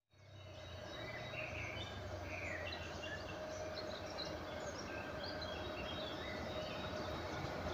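Small birds chirping and calling over a steady low hum and rumble from a distant electric locomotive (ЭП1м) that is approaching.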